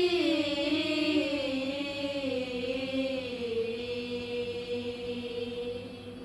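Group of women's voices singing the long final note of a Malay song. The pitch slides down a little, then holds steady while fading away, and stops near the end.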